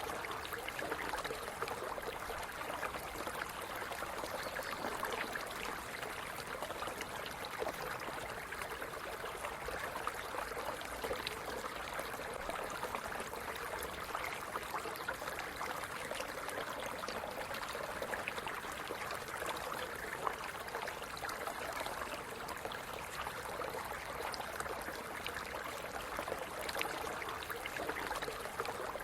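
Small stream running steadily over stones, a constant gurgling and splashing.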